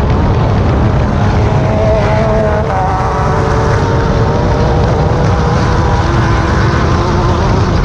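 Class 10 off-road race car's engine running hard over a dense, steady low rumble, its pitch wandering up and down.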